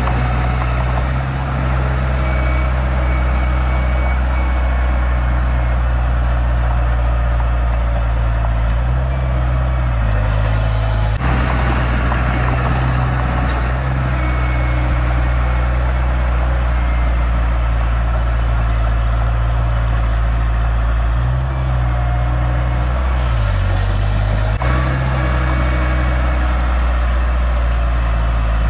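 Heavy diesel engine of earthmoving machinery running loud and steady. Its pitch steps up and down a few times as the revs change, with two sudden breaks in the sound.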